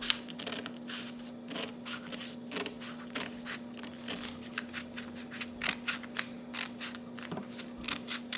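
A sheet of printer paper being handled and creased by hand: an irregular run of small, crisp crackles and taps over a faint steady hum.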